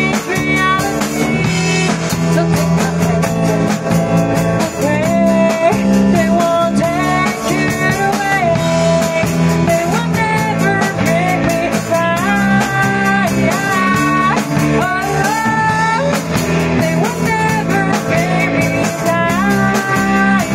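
A band playing live in a rehearsal room, with a woman singing the lead melody over a drum kit and acoustic and electric guitars.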